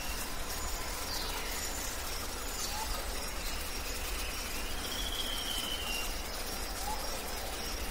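Steady outdoor background hiss with a few faint bird calls: two short rising whistles and one longer, higher call around the middle.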